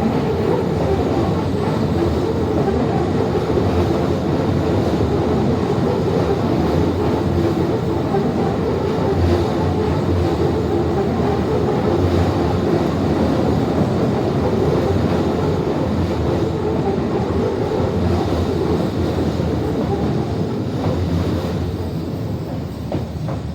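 Train rolling slowly past on a tight, speed-restricted curve: a steady running rumble of wheels on rail that eases off near the end.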